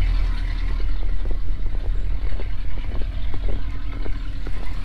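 Pickup truck engine idling steadily, with scattered light metallic clicks and clinks from tire chains being handled and tightened.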